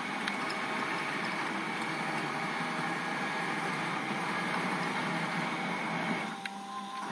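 CNC router gantry moving on DC servo motors driven by Gecko G320X drives: a quiet, steady motor hum with faint whining tones. About six seconds in the sound drops and changes, with a slight vibration, which the builder expects a pillow block bearing to cure.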